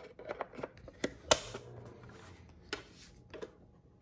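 Plastic battery-compartment cover on the back of a Xiaomi Mi Body Composition Scale 2 being fitted and snapped shut, with one sharp click about a second in among a few lighter clicks. A couple of light knocks follow as the scale is handled and turned over.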